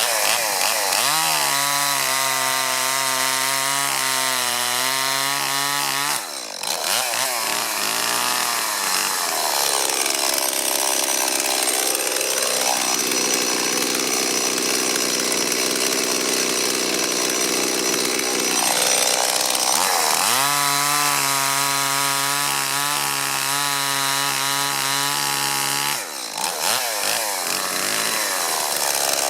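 Stihl MS 170 two-stroke chainsaw running at high revs and cutting through a log. Its engine note alternates between a steady, lower pitch and stretches where it wavers up and down, with two brief dips about six seconds in and near the end. The saw runs well on its rebuilt fuel system.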